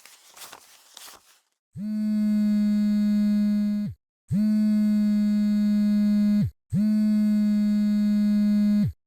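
A brief crackly rustle fades out. Then come three long, steady buzzing tones of about two seconds each, with short gaps between them. Each tone slides up in pitch as it starts and sags in pitch as it cuts off.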